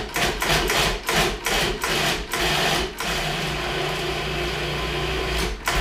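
Electric food processor pulsed in a quick series of short bursts for about three seconds, then run steadily, chopping a thick veggie-burger mixture of black beans, quinoa and oats; it stops briefly near the end and starts again.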